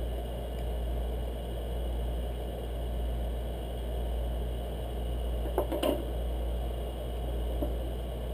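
Steady low hum of room noise while piston ring pliers work a ring onto an aluminium piston, with one brief click a little under six seconds in.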